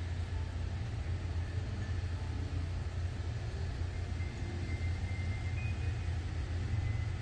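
Steady low rumble of outdoor ambience, with a few faint high tones in the second half.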